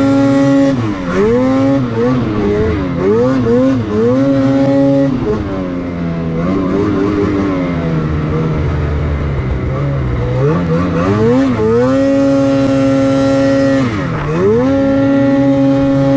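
Lynx Boondocker snowmobile's two-stroke 850 E-TEC engine revving up and down again and again as it is ridden through deep snow. The revs drop lower and slower through the middle, then climb and hold high near the end with one brief dip.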